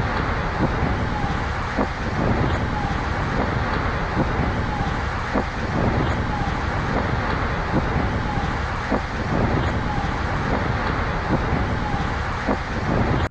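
Strong tornado wind blowing hard across the microphone, a loud, steady noise with scattered knocks from debris. A short high chirp repeats about once a second throughout. The sound cuts off suddenly at the end.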